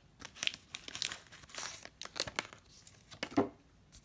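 Crinkling and tearing of a baseball card pack's wrapper as it is handled, a run of irregular crackles with a louder one a little after three seconds in.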